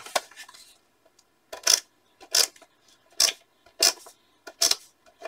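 Handheld tape runner laying adhesive on a paper strip in short strokes: five quick sharp strokes about one every three-quarters of a second, starting nearly two seconds in.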